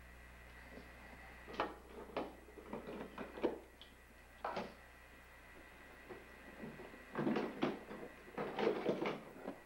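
Irregular knocks, clicks and rattles of small objects being handled on a desk, with a busier cluster of them in the last few seconds.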